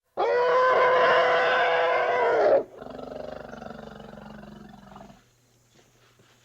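Big-cat roar, loud and held for about two and a half seconds, then dropping to a quieter, lower rumble that fades out about five seconds in.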